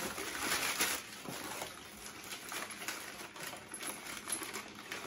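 Plastic packaging and cardboard being rustled and crinkled by hand as a part is unwrapped: an irregular crackle with small clicks, busiest in the first second.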